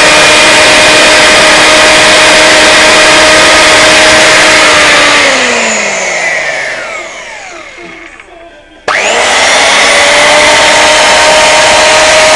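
Electric chainsaw's brushed motor, a Parma 2 with a rewound armature, running at full speed with a steady whine. About five seconds in it is switched off and spins down with falling pitch. Just before nine seconds it is switched back on and quickly revs back up to full speed: a test run of the repaired motor.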